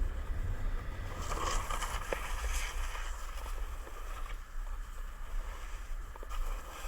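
Snowboard base hissing and scraping over snow while riding, under a steady low rumble of wind buffeting the microphone.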